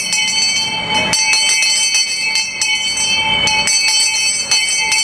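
Town crier's brass handbell rung repeatedly, several strikes a second, each strike renewing a bright, high, lingering ring: the traditional call for attention before a proclamation.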